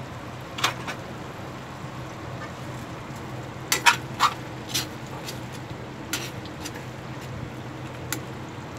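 A metal spatula scraping and knocking against an aluminium wok as pork steak in sauce is stirred and turned: several short, sharp scrapes and clinks, most of them bunched in the middle, over a steady low hum.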